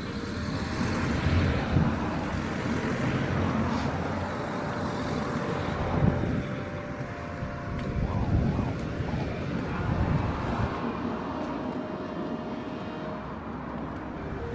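Street traffic: vehicle engines and tyre noise going by, a continuous low rumble that swells and fades.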